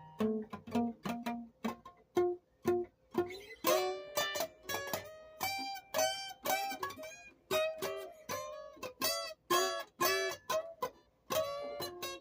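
Plucked string instrument playing a tune of quick, sharply picked notes that ring briefly, with chords mixed into the melody.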